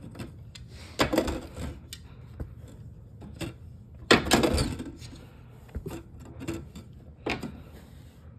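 Window shutter louvers clacking as the tilt rod is pushed to open and close them. There are a few sharp knocks, the loudest about a second in, about four seconds in and near the end, with lighter clicks between them.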